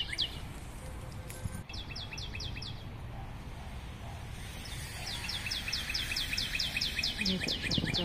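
A small songbird singing rapid runs of clear, falling whistled notes, about six a second: a short run about two seconds in and a longer one from about five seconds on.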